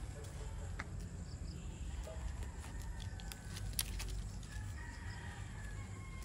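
Chickens, heard faintly: a rooster crowing with one long call near the end, and hens clucking. A few sharp clicks, like goat kids' hooves on loose stone slabs, come about one and four seconds in.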